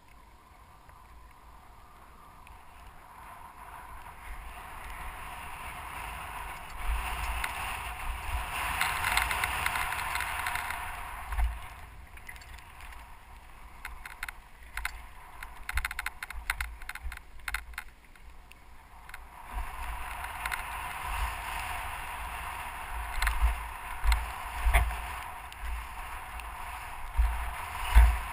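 Mountain bike descending a grassy hillside, heard from a helmet-mounted camera: tyres swishing through long grass and air rushing past, swelling and fading with speed. A run of rattling clicks comes about halfway, and low buffeting thumps from bumps and wind grow near the end.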